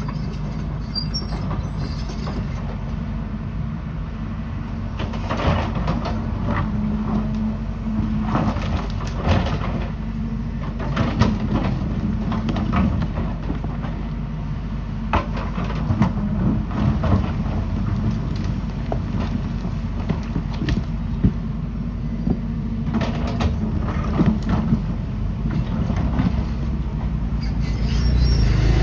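Excavator diesel engine running steadily under load, with repeated sharp clanks and knocks as the bucket works against stones.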